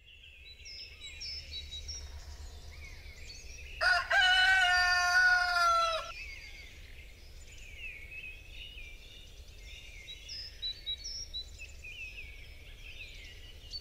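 A rooster crows once, a loud call of about two seconds starting about four seconds in, over the steady chirping of small birds and a low background rumble.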